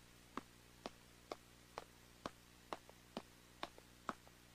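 Faint, evenly spaced light footsteps, about two a second: a cartoon sound effect of a small child walking.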